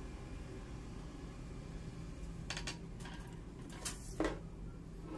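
A badminton racket being handled and turned over on a wooden tabletop: a few light knocks and rubbing sounds from about halfway in, the loudest just after four seconds, over a steady low hum.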